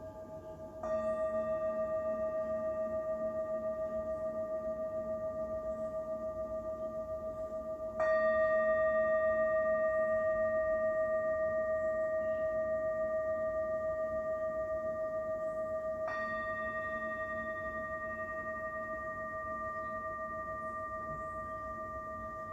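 A singing bowl struck three times, about eight seconds apart, each strike ringing on in a long tone with a slow, even waver and fading gradually.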